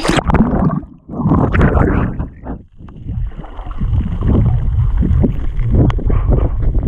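A swimmer splashing as he dives under, then a steady muffled rush of water heard with the camera below the surface.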